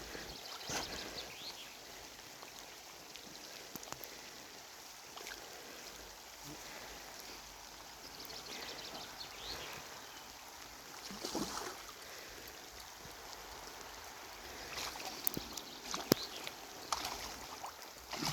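Faint lakeside water sounds, a steady trickling and lapping, with a few sharp clicks and short knocks, the loudest about sixteen seconds in.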